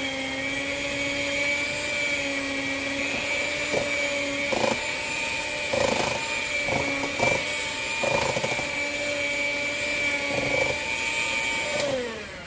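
Electric hand mixer beating butter and eggs in a stainless steel bowl. Its motor runs with a steady whine, and the beaters clack against the bowl several times. Near the end it is switched off and the whine falls as it spins down.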